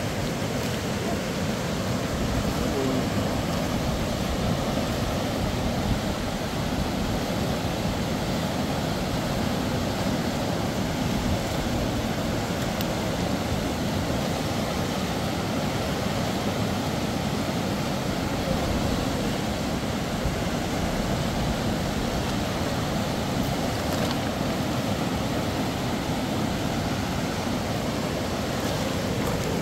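Rushing river water, a steady unbroken noise.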